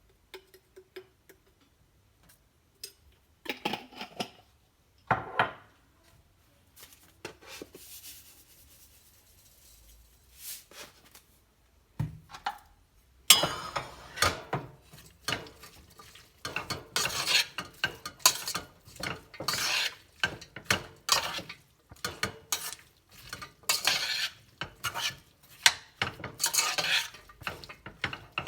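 A kitchen utensil clinking and scraping against cookware: a few scattered knocks at first, then from about halfway a steady run of stirring and scraping strokes, about two a second.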